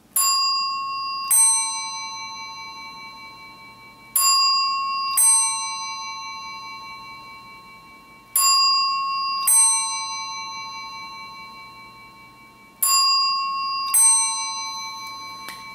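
Western Electric F1A external telephone ringer in its chime setting, sounding a two-note ding-dong four times: a higher gong struck, then a lower one about a second later, each left to ring out, with the pairs about four seconds apart as the ringing current cycles.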